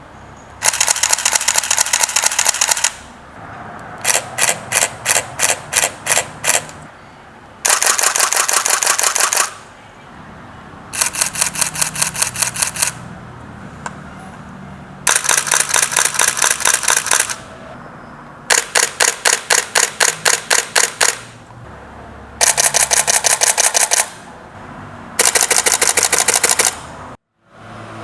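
DSLR shutters firing in continuous burst mode, in eight bursts of about two seconds each with short pauses between. Some bursts are slower, with clearly separate clicks about four or five a second; others are a fast, dense rattle.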